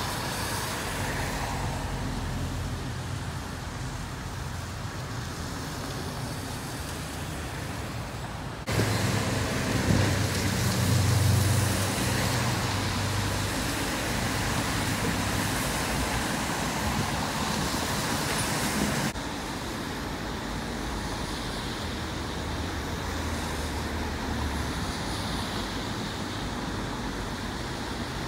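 Steady city road traffic, a hum of passing cars, with a heavier vehicle's low rumble swelling about ten seconds in. The background changes abruptly twice.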